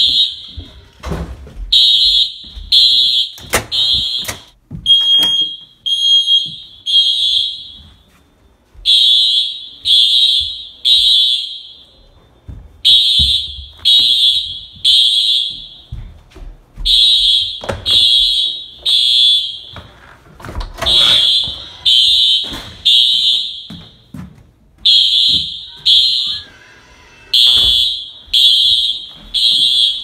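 Building fire alarm sounding the three-beat evacuation pattern: three shrill beeps about a second apart, then a short pause, repeating about every four seconds. Scattered knocks and bumps come between the beeps.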